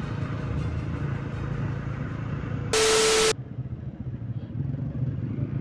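Motorcycle engine and road noise as heard from the rider's camera while riding in traffic. A bit over halfway through, a half-second burst of static-like hiss with a steady hum starts and stops abruptly: an edited transition effect.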